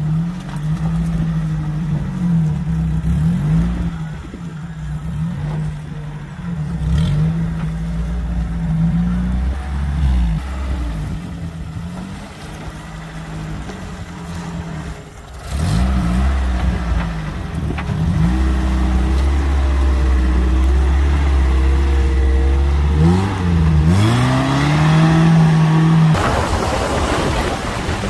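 Suzuki Samurai's engine revving up and easing off in low gear as it crawls through muddy ruts, its pitch rising and dropping every second or so. Later it holds a steady rev, then climbs sharply. Wind rushes over the microphone near the end.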